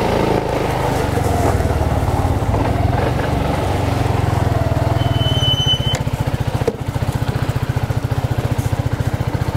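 BMW C 400 GT scooter's water-cooled single-cylinder four-stroke engine running at low speed during a slow U-turn, its firing pulses steady and even in the second half. A brief thin high tone sounds about five seconds in.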